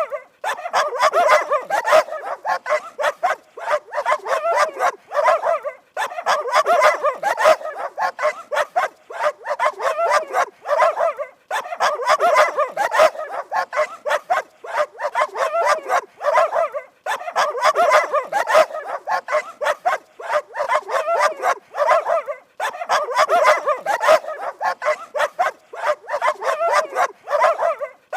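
Dog barking rapidly and without letup, in bouts of about five seconds with brief pauses between them.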